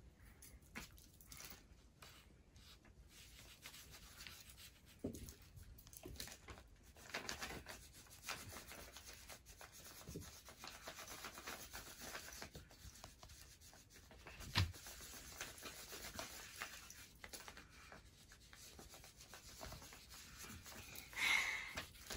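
Faint rubbing and rustling from paper being handled and bodies shifting on carpet, with one sharp knock about two-thirds of the way through.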